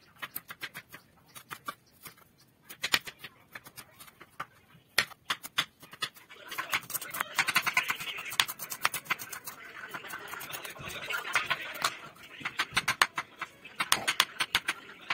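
Chef's knife chopping vegetables on a wooden cutting board: a run of sharp taps, several a second, as the blade strikes the board. A duller steady noise sits under the taps from about six to twelve seconds in.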